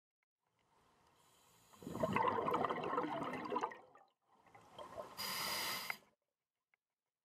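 Scuba diver breathing through a regulator underwater: a long burst of bubbling and rushing air about a second in, then a shorter hissing breath a few seconds later.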